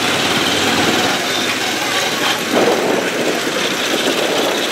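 Motorcycle engine running as it carries three riders at low speed, with the engines of other motorcycles in the street traffic around it.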